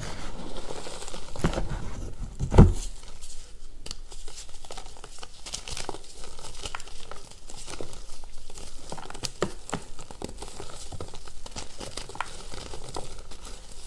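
Hands squeezing and crumbling reformed gym chalk: a dry, crunchy crackling of chalk chunks breaking, with powder and bits pattering back into the pile. A louder thump about two and a half seconds in.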